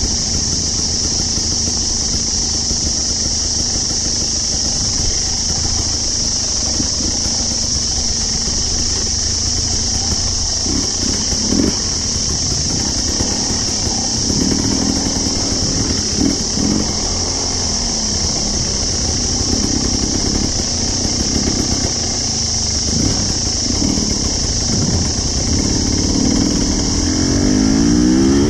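Trail motorcycle engine running while being ridden along a dirt track, its pitch rising and falling with the throttle, most markedly near the end. Over it runs a steady high-pitched drone.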